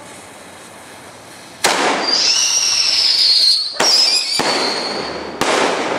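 Fireworks going off close by. About a second and a half in there is a sudden crack, then a loud hissing whistle for about two seconds that dips slightly in pitch. Further sharp cracks follow, each with a shorter whistle and hiss.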